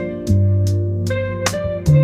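Background instrumental music with a guitar over sustained bass notes and light percussive ticks.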